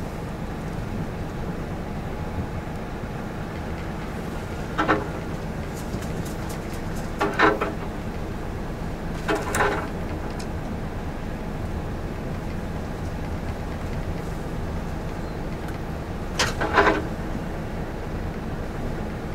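Heavy truck's diesel engine running, with road noise heard inside the cab as it drives slowly along a narrow road. Four short, louder sounds break through, a few seconds apart.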